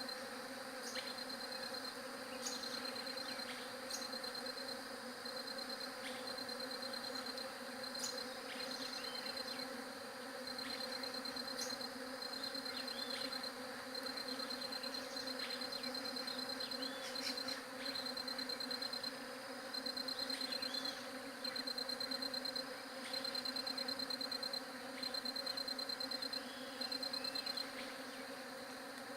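Bees buzzing in a continuous steady hum, with a high pulsed insect trill coming and going in repeated short bursts over it.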